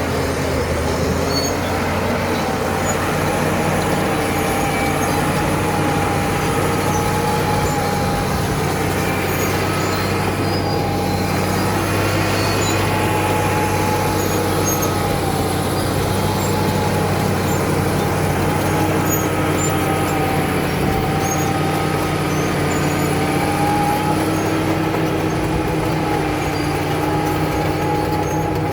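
Cat D7 bulldozer's diesel engine running steadily under work, with a steady mechanical whine over the engine hum.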